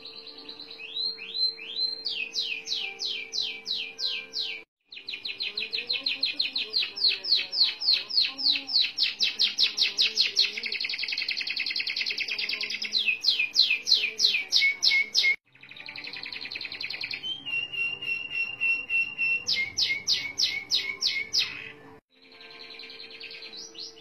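Orange domestic canary singing long, fast trilled rolls of rapidly repeated downward-sweeping notes, each roll lasting several seconds. The song breaks off abruptly three times. Near the end it includes a short held whistle.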